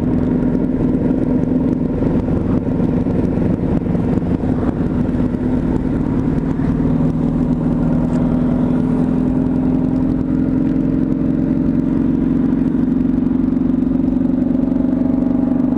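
Motorcycle engine with an aftermarket exhaust running steadily at cruising speed, heard from the rider's seat; its pitch rises slightly near the end.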